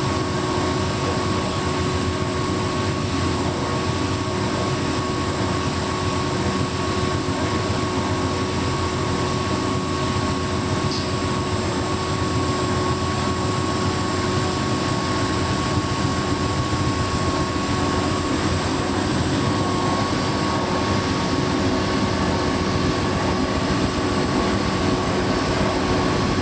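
Hotpoint Active Care heat pump tumble dryer running on its bed and bath cycle: a steady, even whir with a constant hum.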